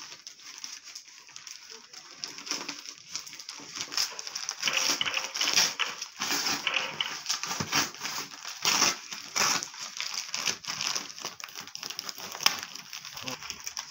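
Plastic courier bag being torn and pulled open by hand, crinkling and rustling with scattered sharp crackles, busiest from about four seconds in.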